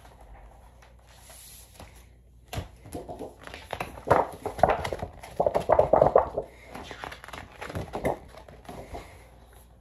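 Cardboard album sleeve being handled and opened close to the microphone: irregular rustling, scraping and knocks that start about two and a half seconds in and die down near the end.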